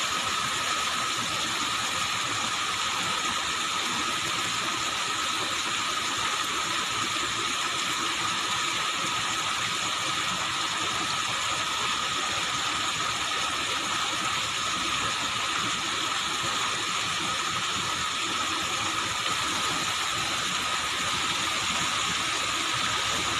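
Steady outdoor background noise: an even hiss with a few constant high-pitched tones, unchanging throughout, with no distinct splashes.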